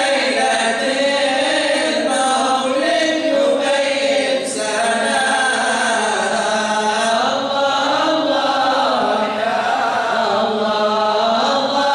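Men's voices chanting together in a slow, melodic devotional chant: a mawlid recitation in praise of the Prophet.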